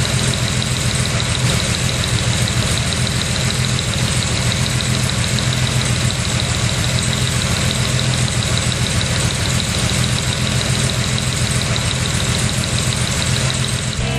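Rebuilt Jaguar 4.2-litre XK straight-six engine, breathing through open intake trumpets on three twin-choke carburettors, running steadily at idle on a test stand. The tapping heard in it is, according to its builder, from the recording, not the engine.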